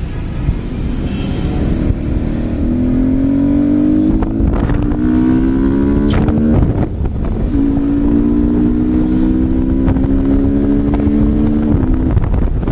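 Sport motorcycle with a loud exhaust accelerating through traffic: the engine note climbs through one gear, breaks for a shift about six and a half seconds in, then pulls steadily in the next gear. Heavy wind rumble on the helmet-mounted microphone runs underneath.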